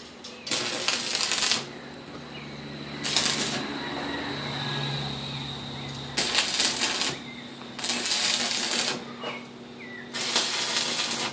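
Electric arc welding crackling in five short runs of about a second each, over a steady low hum.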